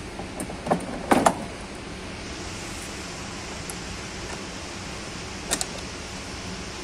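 Sharp plastic knocks and clicks as a large plastic wheel is fitted onto the steel rear axle of a child's ride-on electric car: a few knocks about a second in, the loudest of them close together, and another quick pair later on, over a steady hiss.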